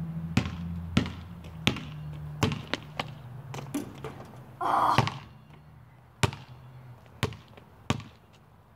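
A basketball bouncing on a concrete court as it is dribbled, sharp slaps coming a bit faster than once a second, with a short rattle near the middle as a shot reaches the hoop. A few more bounces follow it. A low hum runs underneath and fades out a couple of seconds before the end.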